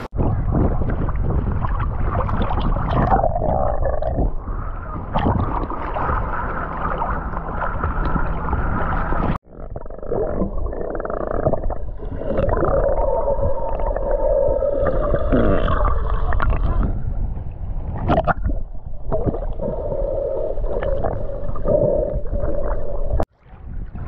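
Muffled underwater sound from a submerged camera: bubbling and a steady low rumble with a faint hum through it. Two sharp cuts break it into three takes.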